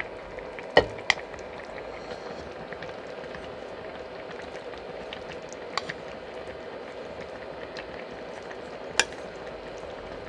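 Pot of dumpling soup boiling steadily, with a few sharp clinks of a metal utensil against the pot, the loudest about a second in and near the end.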